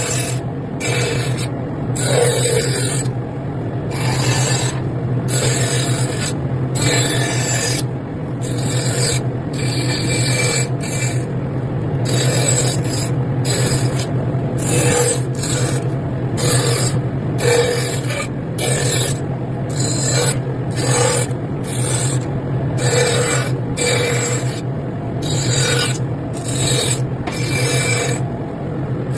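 Wood being hand-filed in steady, repeated scratchy strokes, about one a second, over a low steady hum.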